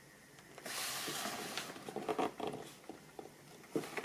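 Cardboard toy box being handled and turned: a brief rustling scrape about half a second in, then scattered light clicks and taps, with a few more near the end.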